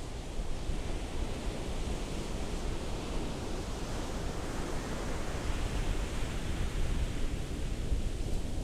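Ocean waves washing steadily, a continuous rush of surf that swells over the middle as a wave comes through and eases off near the end.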